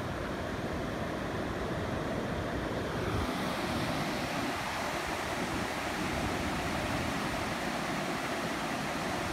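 Ocean surf breaking and washing up onto a sandy beach, a steady rushing noise, with some wind on the microphone.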